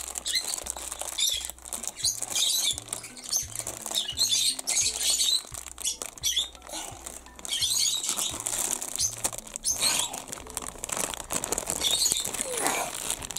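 Thin clear plastic bag crinkling and rustling in a child's hands as she pulls and tears at it to get it open, in irregular crackling bursts. Background music with a steady low beat runs underneath.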